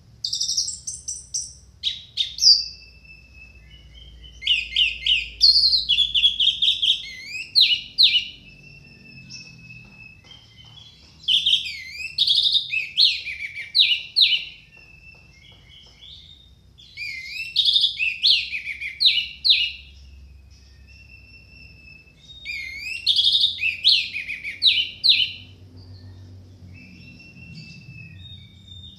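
Orange-headed thrush singing loudly in five bursts a few seconds apart, each a rapid run of varied whistled and twittering notes. The song is the kind packed with mimicked fill-in phrases that keepers play to get other thrushes singing.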